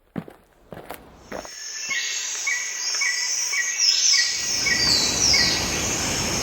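A few footsteps, then birds calling: repeated short chirps with higher descending whistles over them. About four seconds in, a loud steady rushing noise joins and carries on under the calls.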